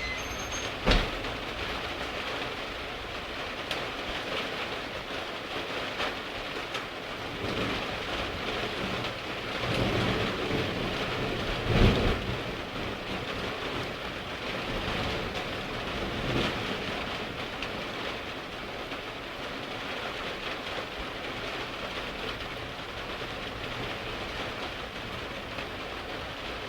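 Steady rain falling in a thunderstorm, with a roll of thunder that swells about ten seconds in and peaks around twelve seconds.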